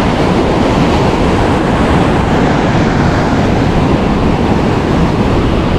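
Steady, loud wind noise buffeting the microphone, mixed with the wash of surf on the beach.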